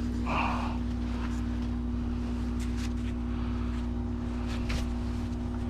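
A machine running with a steady, unchanging hum, with a few light clicks and taps over it.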